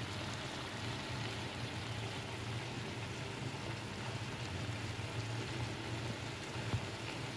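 Chicken and potato curry sizzling steadily in a kadai over the heat, with a low steady hum beneath.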